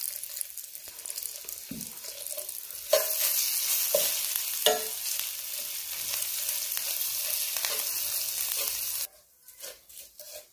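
Spices and curry leaves sizzling in hot oil in a frying pan as a slotted steel spatula stirs and scrapes through them, the tempering stage of a potato filling. The sizzle gets louder about three seconds in, with a few sharp scrapes of the spatula, and cuts off suddenly near the end.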